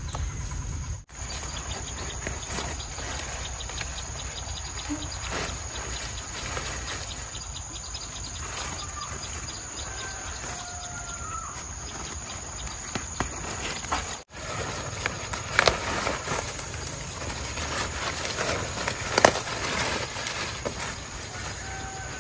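Outdoor garden ambience with a steady high insect trill. Leaves rustle as leafy greens are pulled up by the roots and handled, with a few sharp snaps in the second half.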